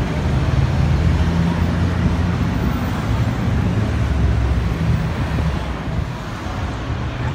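Road traffic passing close by: cars and a van driving past, a steady mix of tyre noise and a low engine drone.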